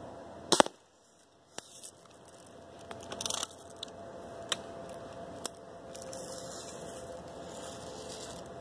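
A single sharp, loud crack about half a second in from a Daisy Red Ryder lever-action BB gun fired at a balloon, followed by scattered small clicks and a brief rattle.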